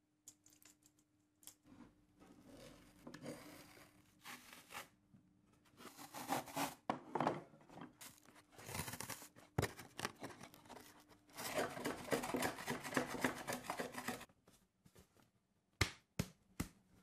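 Old green baize drawer lining being torn and peeled off the wood by hand, in several noisy bursts, the longest about three seconds. A few sharp taps near the end.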